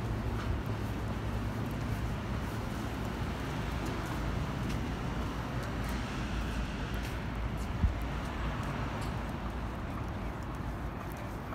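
Steady city traffic noise, with one short thump about two-thirds of the way in.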